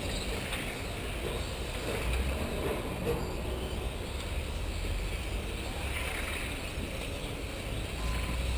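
Electric 1/10-scale RC Formula 1 cars running around the track, a steady whir of motors and tyres, with a low rumble of wind on the microphone.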